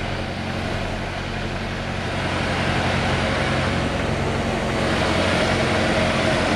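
Semi-truck's diesel engine running as the rig pulls slowly forward, heard from inside the cab, getting louder about two and a half seconds in.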